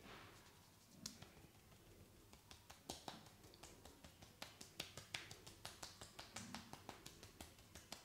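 Massaging hands on skin and hair during a neck massage: faint quick taps and clicks, about three or four a second from about two seconds in, with some soft brushing.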